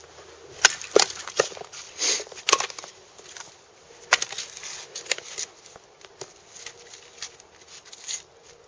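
Gedore Ochsenkopf OX 235 hatchet chopping and splitting short firewood logs on a wooden chopping block: a series of sharp knocks, loudest and closest together in the first few seconds, then fewer and lighter knocks as split pieces are handled and a new log is set on the block.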